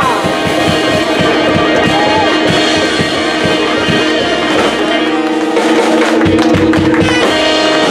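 Small band of saxophone, guitar, upright bass and drum kit playing live, the drums keeping a steady beat, then a long held chord from about five seconds in that breaks off shortly before the end, the close of the song.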